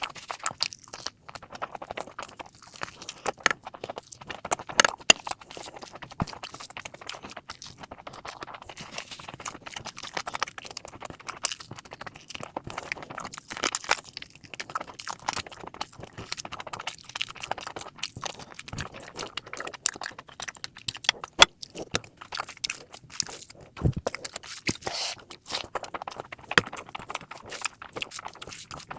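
Close-miked chewing and wet mouth sounds of someone eating mutton fat curry with rice: a dense, irregular run of smacks and crunchy clicks, with a few sharper, louder ones.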